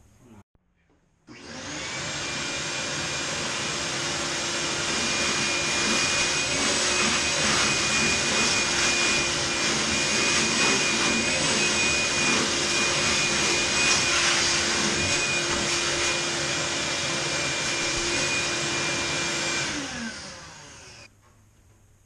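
Vacuum cleaner switched on about a second in, its motor running steadily with a high whine. It is switched off near the end and winds down.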